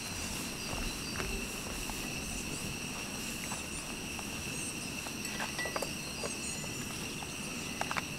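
A metal spoon scraping and tapping against a cooking pot in faint, scattered clicks as cooked rice is scooped out. A steady high-pitched whine sits under it throughout.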